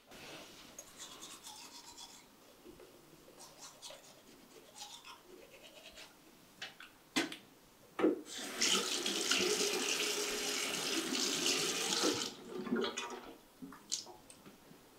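Bathroom sink tap turned on and running in a steady stream for about four seconds, then shut off, with a couple of small knocks just before it and a few light clicks after.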